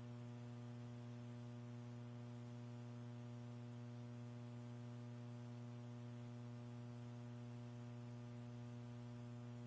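Steady low electrical hum with a string of evenly spaced overtones over a faint hiss, unchanging throughout: mains hum on the broadcast audio feed.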